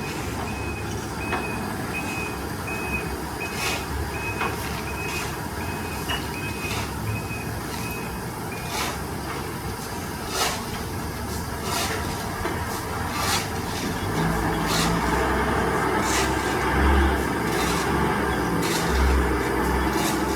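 Truck reversing alarm beeping at one pitch, about three beeps every two seconds, stopping about nine seconds in, over the truck's engine running. The engine grows louder in the second half, and brief sharp clicks come now and then.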